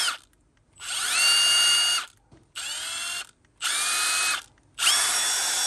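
Milwaukee 2853 M18 FUEL 1/4-inch hex impact driver spinning free with no load in four short trigger pulls, after a run that cuts off at the start. Each time the motor whine rises and settles at a different pitch as the tool steps through its speed modes. The second run is quieter and lower.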